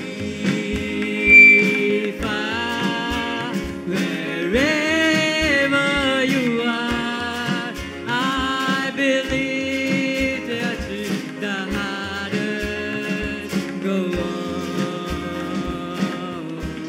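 Live band music: a melody that slides up and down, possibly sung, over a steady kick-drum beat about twice a second. A short, bright high note about a second in is the loudest moment.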